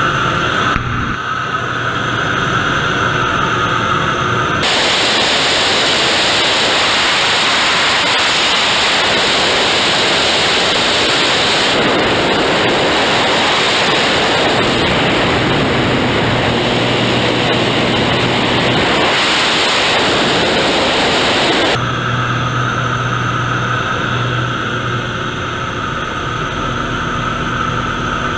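Zlin 50 aerobatic plane's engine and propeller droning steadily, heard from the cockpit. About five seconds in, this gives way to a loud, even rushing of wind noise that lasts about seventeen seconds, then the engine drone returns.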